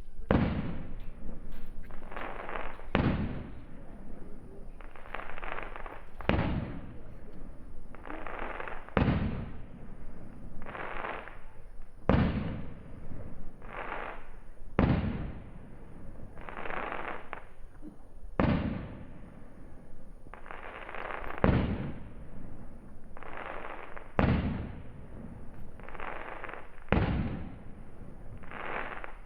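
Fireworks shells bursting in quick succession, a sharp bang every second or two, each trailing off over about a second.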